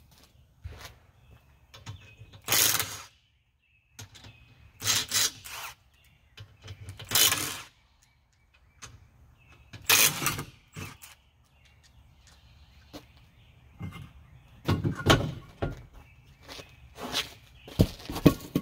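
Lug nuts being worked off a car's rear wheel with a wrench: a run of short, loud mechanical bursts. Four come well spaced through the first ten seconds, then a quicker cluster near the end as the wheel comes off the hub.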